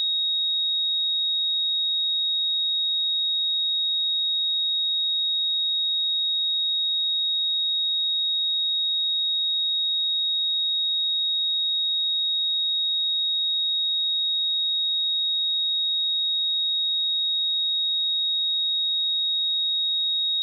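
Pure 3766 Hz sine-wave test tone, a single steady high-pitched note held at constant level.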